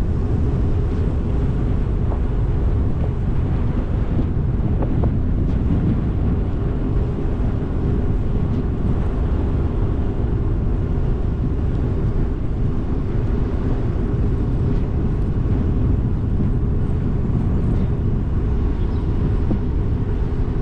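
Steady low wind rumble buffeting the microphone on a moving e-bike being ridden into a headwind.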